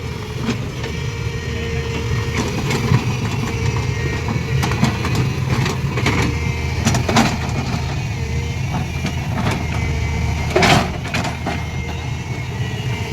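An engine running steadily at a low pitch, with scattered clicks and knocks over it and a louder knock near the end.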